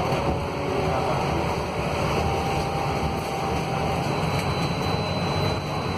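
Scania K280 city bus heard from inside the passenger cabin while under way: a steady low rumble of its Scania DC09 engine and driveline, with faint thin whining tones drifting in and out.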